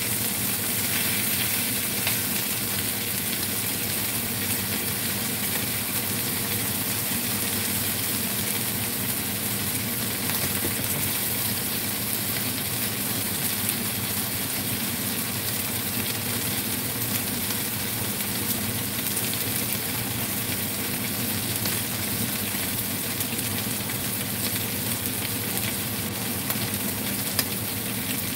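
Mayao fish pieces frying in a little cooking oil in a nonstick wok: a steady sizzling hiss with scattered small crackles.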